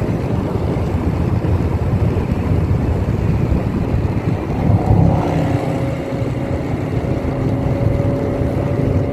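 Car driving at road speed, heard from inside: a steady low rumble of engine and tyre noise with wind on the microphone. A faint steady hum joins about five seconds in.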